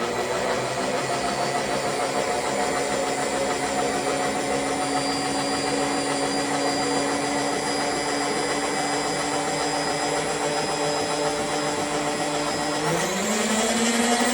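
Electric motor of a shop machine starting abruptly and running with a steady hum, its pitch stepping up about thirteen seconds in and holding higher.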